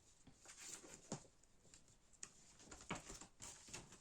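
Faint rustling and a few soft ticks of folded paper posters being handled.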